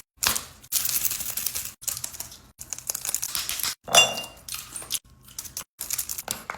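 Quick runs of small hard clicks and taps, like small objects being handled and set down, broken off abruptly several times, with a short bright ring about four seconds in.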